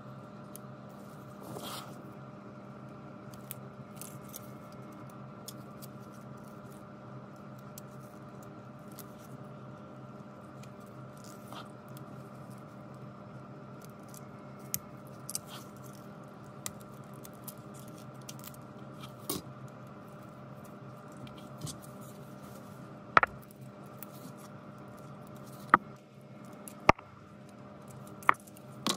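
Small clicks and scrapes of fine steel tweezers working inside an opened smartphone, unclipping flex-cable connectors and lifting a thin antenna cable, with a few sharper snaps in the last six seconds. A steady low hum runs underneath.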